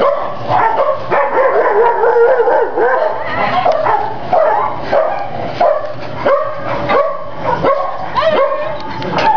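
Several kennelled shelter dogs barking and yelping at once, a continuous overlapping chorus of short calls at different pitches.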